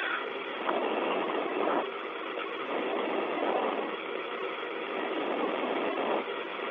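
Steady hiss of an open space-to-ground radio channel between the Soyuz spacecraft and Russian mission control, band-limited and changing texture every second or so.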